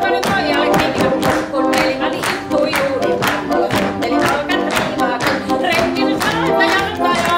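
A group of voices singing a lively song, with a steady beat of sharp claps or knocks about three times a second.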